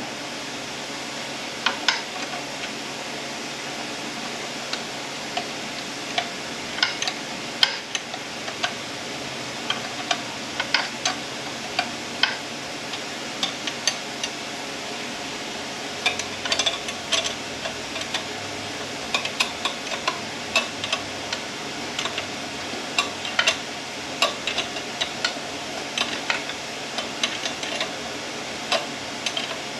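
Scattered light metallic clicks and taps of hand tools working on a Ford 10R80 transmission, over a steady background hiss, as a puller is set up to try to pull the pump out.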